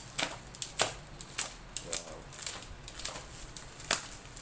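A parcel's packaging being handled and opened by hand: irregular sharp crackles and clicks.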